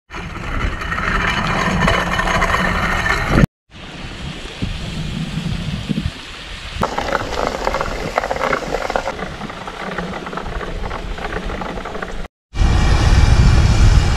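Gravel bike tyres rolling over wet, sandy gravel, with grit crackling under them and wind on the microphone. The sound cuts out briefly twice, after about three and a half seconds and near the end, and is quieter in the middle stretch.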